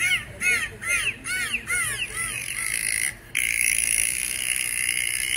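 A bird calling over and over, short rising-and-falling calls about two and a half a second, dying away about two seconds in; then a steady hissing buzz, broken briefly about three seconds in.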